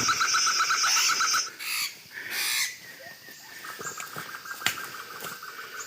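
Forest insects trilling in a steady pulsing chorus, cut off about a second and a half in, with two short bird calls around two seconds in before the trilling resumes.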